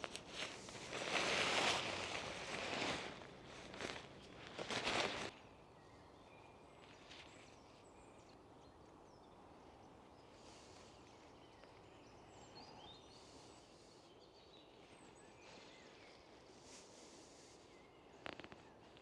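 Nylon tarp and its stuff sack rustling loudly as they are handled for about five seconds. After that, quiet woodland background with a few faint bird chirps and a small rustle near the end.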